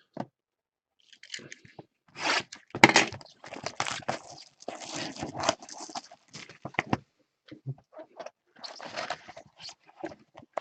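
A mega box of football trading cards being torn open by hand, its wrapping and cardboard crunching, scraping and tearing in uneven bursts.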